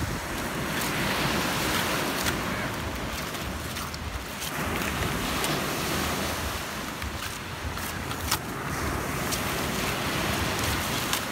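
Surf washing on a beach, a steady rush that swells and eases every few seconds, with a few sharp clicks over it.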